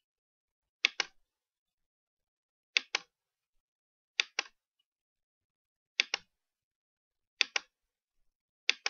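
Computer mouse button clicked six times, about every one and a half seconds, each a sharp press-and-release pair of clicks, stepping a debugger through a program one instruction at a time.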